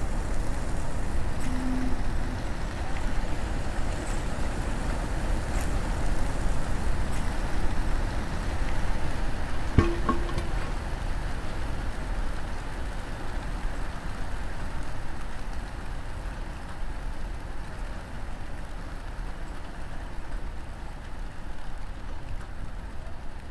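Dark ambient drone soundtrack: a steady, noisy rumble, with a short hum about two seconds in and a sharp knock about ten seconds in.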